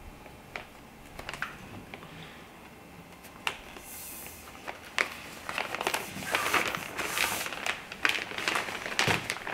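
Reflector fabric rustling and crinkling as a flexible pole is fed through its elastic pull pocket, with scattered light clicks of the pole being handled. The rustling grows denser about halfway through.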